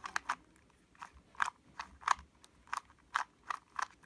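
QiYi 2x2 plastic puzzle cube being turned quickly by hand, its layers snapping into place with a run of sharp plastic clicks, about three a second.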